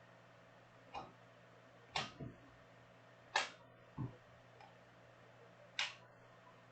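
Faint, sharp clicks and taps, about six at irregular intervals with two close together just after two seconds in: trading cards being handled and set down on a table.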